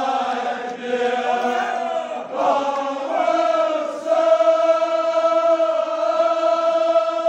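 A group of men chanting a Kashmiri marsiya together. Their voices move between pitches at first, then settle about four seconds in on one long held note.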